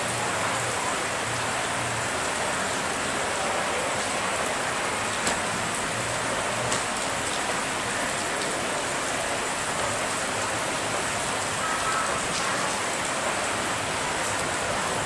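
Steady downpour of rain on wet pavement, with a few sharp drips standing out now and then.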